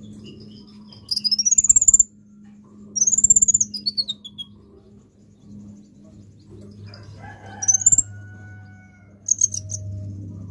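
Copper-throated sunbird calling in four quick bursts of high chirps that rise and arch: a rapid string about a second in, another at three seconds that tails off downward, a short rising call near eight seconds, and a fast stuttered trill near the end. A low steady hum runs underneath.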